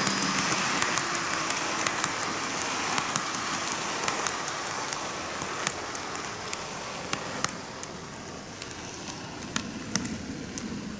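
N-gauge model train, a TOMIX Odakyu 50000 series VSE, running along its track: a steady hiss from the motor and wheels with sharp, irregular clicks from the wheels crossing rail joints, gradually getting quieter.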